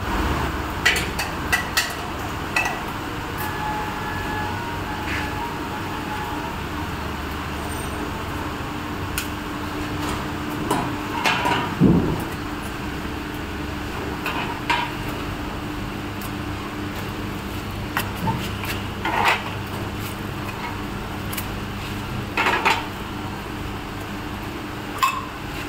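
Super Tech cup foil-sealing machine running: a steady hum broken by irregular metallic clanks and clicks, the loudest about halfway through.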